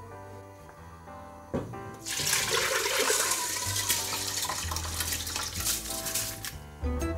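Rice and water poured from a bowl into a pot of water, splashing and running steadily for about four and a half seconds, starting about two seconds in, over background music.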